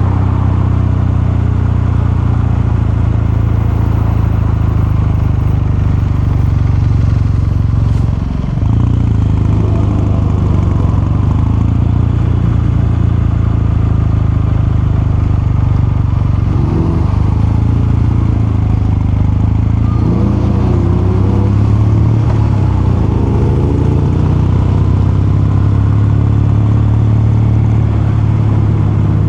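Kawasaki Meguro K3's air-cooled parallel-twin engine and exhaust running steadily under way, heard from the rider's position, with a brief dip about eight seconds in.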